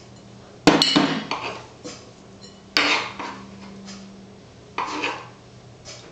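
Metal spoon clinking and scraping against a cut-glass bowl as chopped raw beef is scooped into it: two sharp clinks just before a second in, then louder scraping strokes near three and five seconds in.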